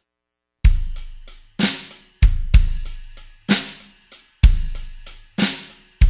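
Drums alone opening a southern soul song: after a brief silence, a steady slow beat of bass drum, snare and cymbal hits, each ringing out and decaying before the next.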